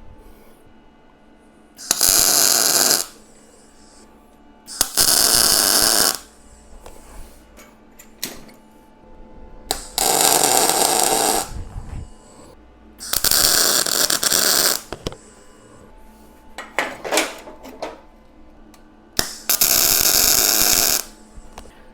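Welding arc on steel, laying five short tack welds of about a second each with pauses between, tacking laser-cut steel bolster ribs to a locomotive floor sheet.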